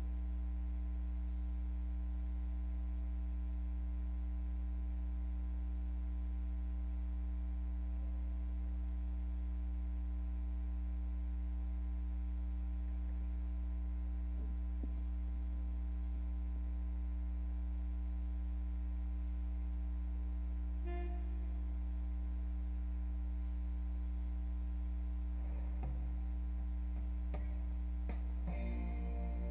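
Steady low electrical hum, unchanging throughout, with a brief faint musical note about two-thirds of the way through and music starting again just before the end.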